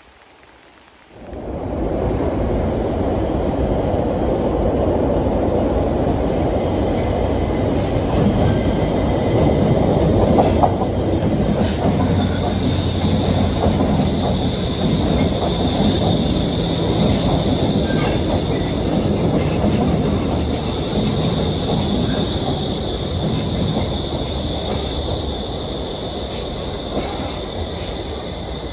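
A Stockholm metro C30 train running along a platform: a loud steady rumble of wheels on rails that starts abruptly about a second in. From about twelve seconds in it carries a steady high-pitched whine, and the rumble eases a little near the end.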